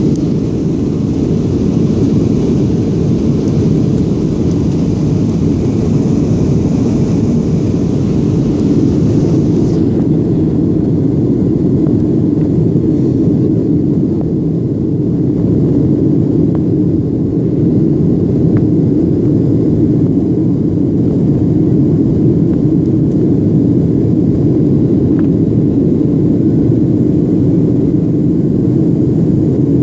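Steady jet-engine and airflow noise inside the cabin of a Boeing 737 climbing out after takeoff: a loud, even rumble. A higher hiss drops out about ten seconds in.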